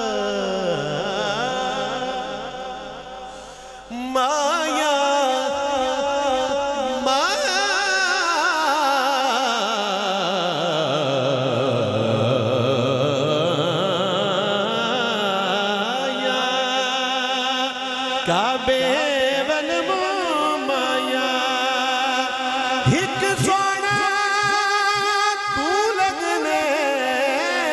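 A man singing a Punjabi devotional naat through a microphone and loudspeaker in long drawn-out, wavering notes. His voice slides down to a low note about ten seconds in and climbs back up.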